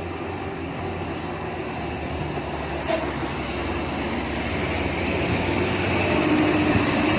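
Diesel engine of a loaded Hino cargo truck labouring up a steep grade, a steady low drone growing louder as the truck comes closer. A short sharp click comes about three seconds in.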